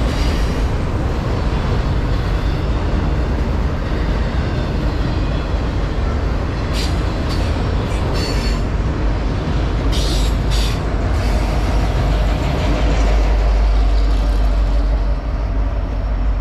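Freight train cars rolling past, a steady rumble of steel wheels on the rails. Brief high-pitched wheel squeals come several times, about seven to eleven seconds in, and the low rumble grows heavier near the end.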